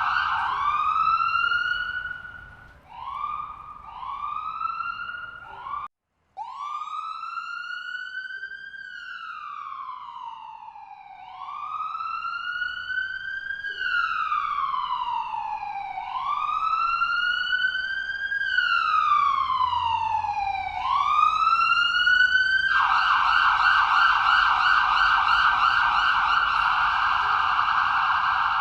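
Electronic ambulance siren cycling through its tones: a fast yelp, short rising whoops, a brief cut-out about six seconds in, then a slow wail rising and falling about every four seconds, switching back to the fast yelp near the end.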